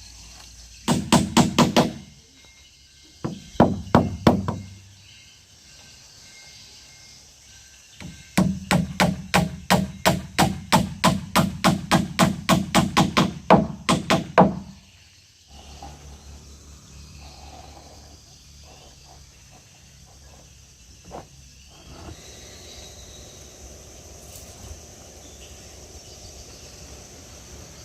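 Hammer driving nails into wooden boat planks: three bursts of rapid, evenly spaced blows about four a second, the longest run lasting about six seconds, then the hammering stops.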